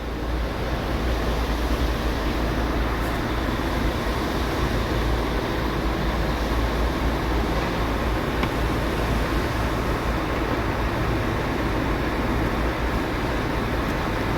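Steady low mechanical rumble, with a faint tick about eight and a half seconds in.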